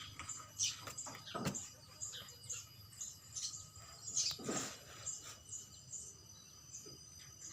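Birds chirping: many short, repeated calls, with two louder calls about a second and a half in and again past the middle.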